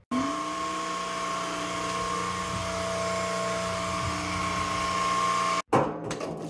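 Shark Stratos cordless stick vacuum switched on: its motor spins up with a quick rising whine, then runs steadily with a high whine over the suction noise. It cuts off abruptly about five and a half seconds in, followed by a few knocks.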